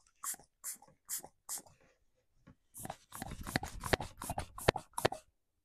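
Hand vacuum pump drawing on a Stihl MS211 chainsaw's fuel tank through the fuel line: a few pump strokes about two a second, then a faster run of clicks for about two seconds. The tank does not hold vacuum, the sign that its tank vent is letting air in and working.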